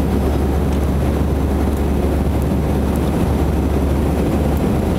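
Airbus A321 jet engines and airflow, heard as a steady, unchanging low rumble inside the cabin during the climb after take-off.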